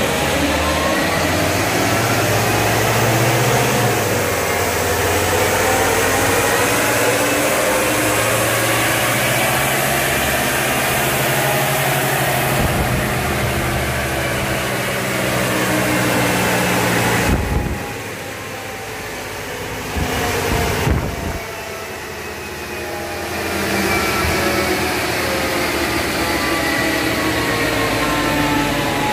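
Remapped Ford Ranger turbodiesel engine run hard on a chassis dynamometer, its pitch climbing as it pulls up through the revs. About two-thirds of the way in the load comes off and it drops back, with one short rev, then it pulls loudly again near the end. A large cooling fan blows steadily throughout.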